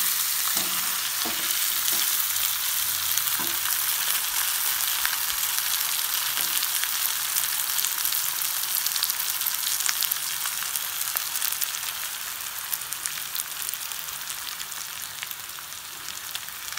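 Chicken pieces sizzling and crackling in oil in a steel kadai. A metal spatula stirs and scrapes through the pan for the first few seconds. The sizzling slowly dies down over the last few seconds.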